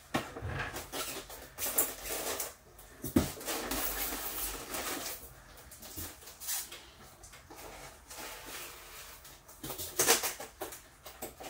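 A large cardboard box being handled and opened: irregular rustling, scraping and clicks, with a sharp knock about three seconds in and a burst of louder clicks about ten seconds in.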